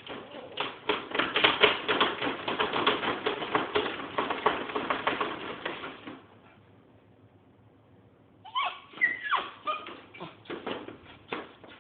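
Rapid clattering clicks for about six seconds, then after a short pause a dog whining in short high cries that slide up and down.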